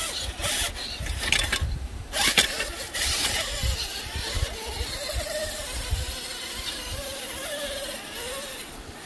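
A scale RC rock crawler's motor and gears whining, the pitch rising and falling with the throttle as it climbs steep rock. Sharp knocks and scrapes of its tyres and chassis on the rock come in the first three seconds, the loudest about two and a half seconds in.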